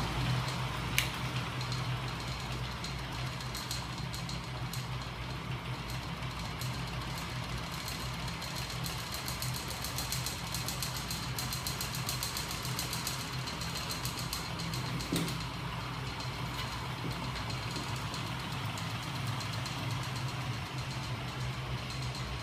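Homemade reciprocating magnet-and-spring machine running, driven by a small electric motor: a steady low mechanical hum with a fast rattle throughout, a click about a second in and a single knock about fifteen seconds in.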